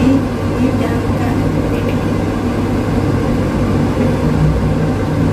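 A steady low mechanical hum, with a few faint scrapes of a metal spatula lifting stir-fried noodles out of a wok.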